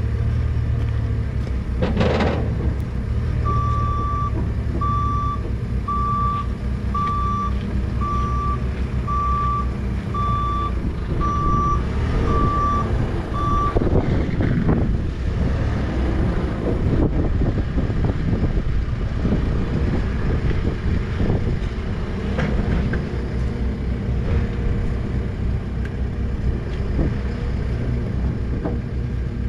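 A semi truck's diesel engine idles with a steady low rumble. From a few seconds in, a vehicle's backup alarm sounds about ten beeps, roughly one a second, then stops. There is a single sharp clank about two seconds in.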